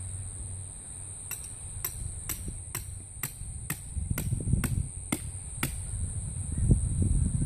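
A hammer driving a tent peg into the ground: about ten sharp strikes, roughly two a second, that stop a little past the middle.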